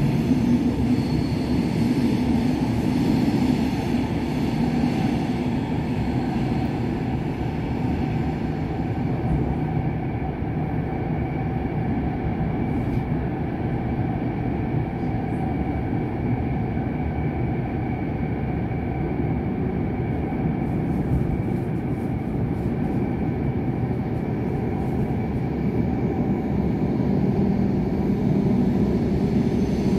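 Stadler RABe 511 KISS double-deck electric multiple unit running steadily, heard from inside the passenger compartment: an even rolling rumble from the wheels and running gear, with a faint steady whine above it.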